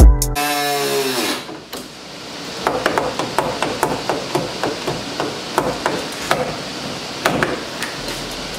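Repeated sharp knocks and bangs, a few a second and irregular, as the door-lock actuator and its latch arm are struck and worked loose inside a car's rear door panel.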